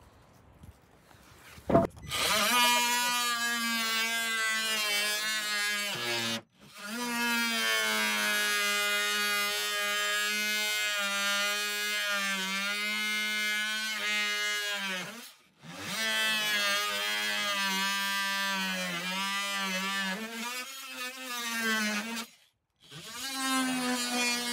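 Cordless oscillating multi-tool buzzing steadily as its blade cuts into a wooden deck board, in four runs with short stops between; the pitch sags now and then as the blade bites. A sharp click comes just before the first run.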